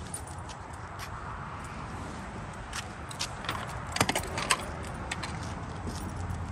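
Keys jangling with a few sharp clinks about three to four and a half seconds in, over a low steady rumble.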